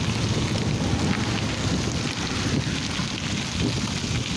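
Wind buffeting the microphone of a camera riding along on a moving bicycle: a steady low rumble with a hiss above it.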